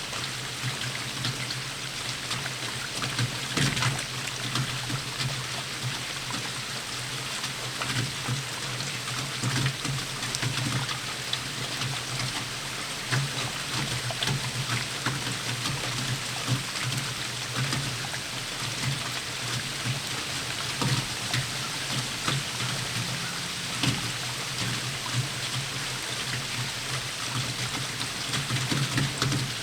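Steady rainfall, an even hiss with many sharp ticks of single drops striking close by.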